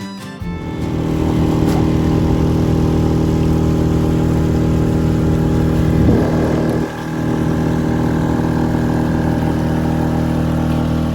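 A loud engine running steadily, with a short dip about seven seconds in.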